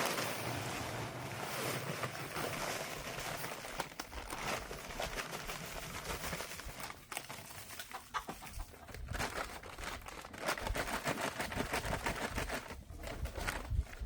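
Chickens clucking over the rustle and pour of dry Quikrete high-strength concrete mix being emptied from its bag into a fence-post hole.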